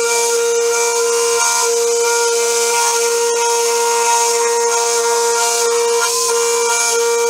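Home-built CNC mill's spindle whining at a steady pitch as a 4 mm end mill cuts a small wheel-rim contour into metal, over a steady hiss of cutting and coolant spray. The pitch dips briefly twice, as the cutter takes more load.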